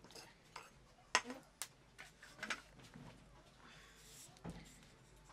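A metal spoon knocking and scraping against a small clay pot, with one sharp clink a little over a second in and a few lighter knocks after it.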